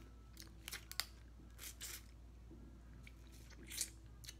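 A person eating crab up close to the microphone: a few scattered wet smacks and clicks as crab meat is bitten off the shell and chewed.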